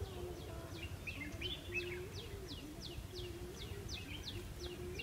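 Wild birds calling in dry hillside scrub: a rapid, even series of high, falling chirps about four a second, over a lower wavering note that breaks off and resumes.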